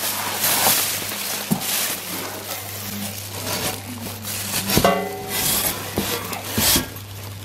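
Bubble wrap and plastic packaging rustling and crinkling in a cardboard box as exhaust headers are unpacked and handled, over a steady low hum.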